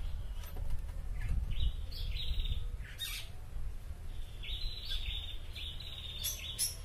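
Bird chirping, a series of short high calls repeated more densely in the second half, over a steady low rumble. There is a faint click about three seconds in.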